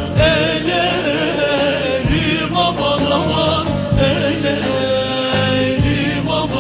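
Turkish folk song (türkü): a singer's wavering voice over sustained instruments, with a low drum beat about every two seconds.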